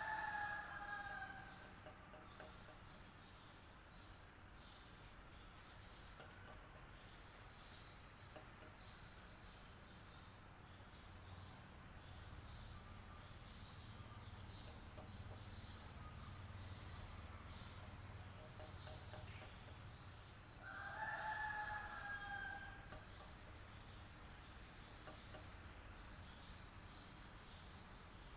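Faint steady high-pitched drone over a low hum, with a long crowing call at the very start and again about 21 seconds in.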